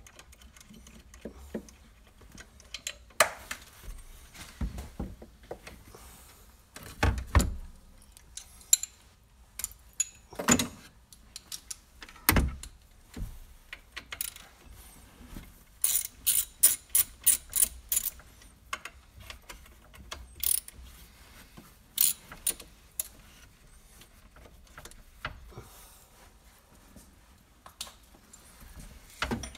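Hand tools on metal in a car's engine bay: scattered clinks and knocks, and about halfway through a quick run of ratchet-wrench clicks, about four a second, as the belt tensioner's bolts are worked loose.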